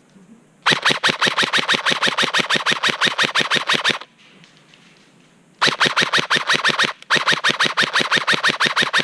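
Colt M4A1 airsoft rifle firing on full auto in three long bursts of about eight shots a second. The first burst lasts over three seconds, then a short pause, then two shorter bursts.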